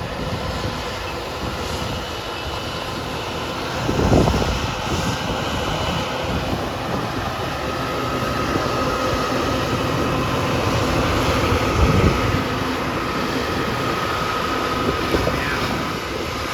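Harvest machinery running steadily in a soybean field, a continuous engine and machine noise. A faint steady whine comes in about halfway through, and there are two short louder thumps.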